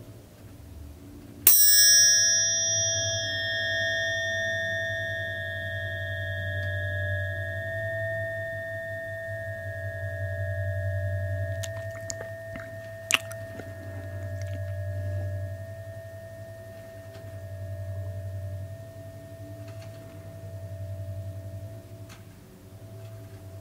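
Steel tuning forks ringing close to the microphone. One is struck about a second and a half in and rings on in a clear, pure tone that slowly fades, over a lower hum that swells and fades every few seconds as the forks move. A sharp click about 13 seconds in.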